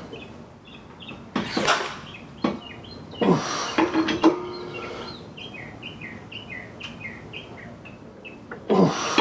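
Breaker bar with a socket tightening the lug nuts on a spare wheel: a few short, loud creaking and clanking strokes. Birds chirp in the background between them.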